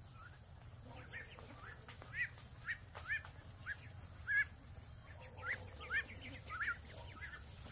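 Poultry calling: a string of short, high-pitched peeps, roughly two a second, starting about a second in.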